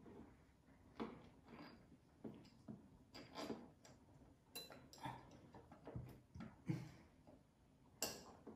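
Faint, irregularly spaced clicks and light knocks from curtain-hanging hardware being handled and fitted at the wall, about a dozen in all, the sharpest near the end.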